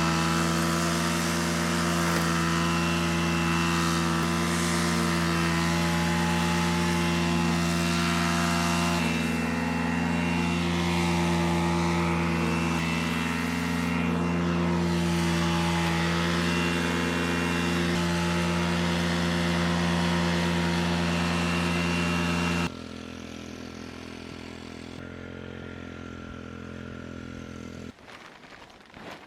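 Petrol strimmer (brush cutter) engine running at a steady speed while trimming the land. About 23 seconds in it drops suddenly to a fainter engine sound, which stops near the end.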